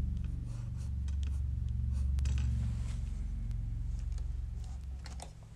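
Wooden pencil scratching on paper in short strokes as lines are sketched, over a steady low hum.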